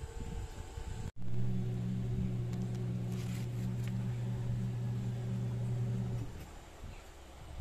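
Small USB-powered blower fan on a charcoal stove running with a steady low hum. It starts abruptly about a second in and dies away about six seconds in.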